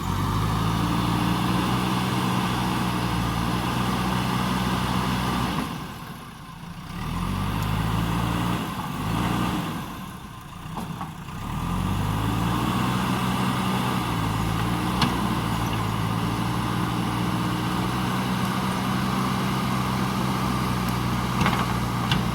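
JCB backhoe loader's diesel engine running at steady working revs. It falls off twice, about six and about ten seconds in, and revs back up each time. A few sharp clicks come later on.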